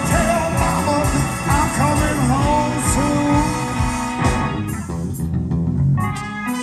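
Live blues-rock band playing, with a lead line of bending, sliding notes over bass and drums. The band thins out for a moment about five seconds in, then comes back with sharp drum hits.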